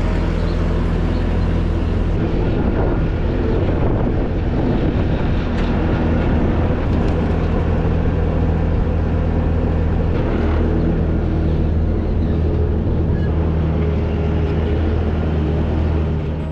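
Skid steer loader engine running steadily, heard close up from the operator's seat, its pitch dipping slightly now and then.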